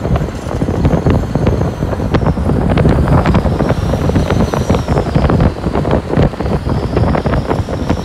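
Wind rushing over the microphone at the open window of a moving minibus, over steady road and engine noise, with frequent small clicks and knocks.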